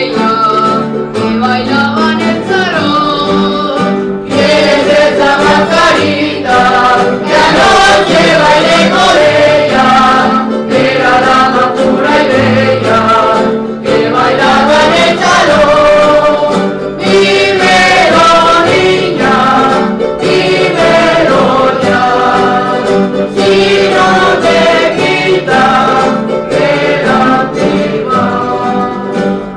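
Folk group singing a song in chorus, accompanied by guitars and other plucked string instruments strummed in a steady rhythm.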